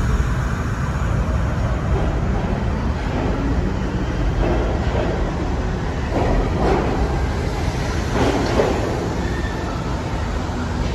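R68 subway train pulling out of an underground station and moving off along the track, a steady low rumble with three bursts of wheel clatter in the middle of the run.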